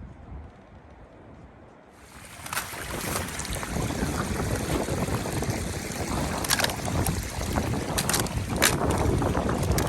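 Steady rushing wind noise with scattered sharp crackles. It jumps louder about two seconds in.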